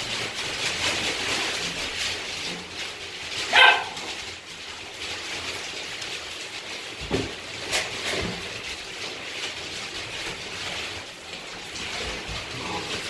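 Seven-week-old Dobermann puppies playing on wood-pellet bedding: a steady rustle of pellets as they move and chew toys, with one short puppy bark about three and a half seconds in and a few soft knocks.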